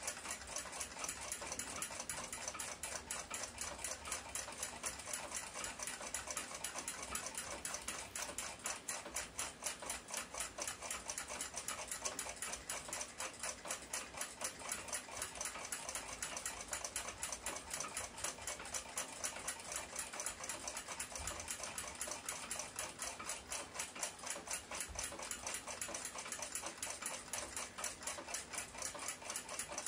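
Swiss lever pocket watch in a silver case ticking with a quick, even beat. It has just been cleaned and oiled and is running well.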